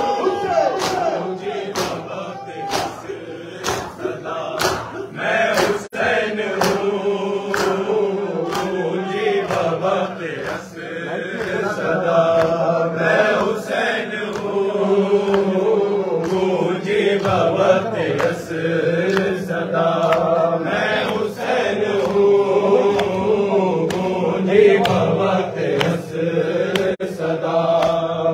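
Male reciters chanting a noha, a mourning lament, into microphones with a crowd of men joining the refrain. Under it runs a regular beat of sharp strikes, about one and a half a second, clearest in the first ten seconds: the crowd beating their chests in time (matam).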